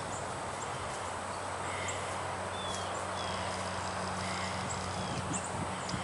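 Steady outdoor background noise with a low, even hum, and a few faint, short high chirps from small birds. There is no woodpecker drumming or pecking.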